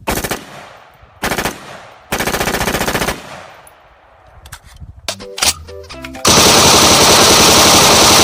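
M16 automatic rifle fire. Short rapid bursts come in the first three seconds, a few single shots follow around five seconds in, and a loud continuous stream of rapid fire starts a little after six seconds.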